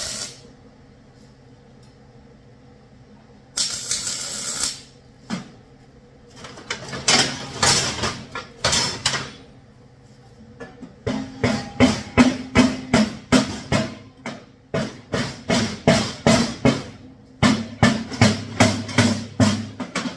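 Hammer striking a steel diamond-plate box side, in runs of about three ringing blows a second, knocking the side into place for tacking. About three and a half seconds in, a welding arc crackles for about a second as a tack is struck.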